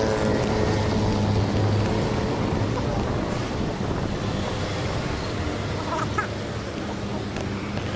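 Road traffic noise with wind on the microphone. A motor vehicle's engine hums low through the first couple of seconds, then fades into a steady rush.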